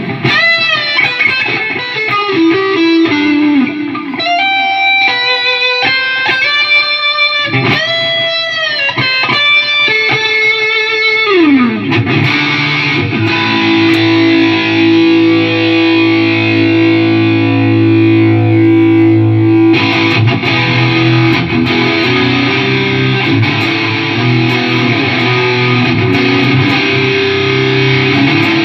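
Electric guitar played through a Line 6 Helix multi-effects unit during a sound test after repair. It plays single-note lead lines with string bends for about the first twelve seconds, then held chords that thicken about twenty seconds in.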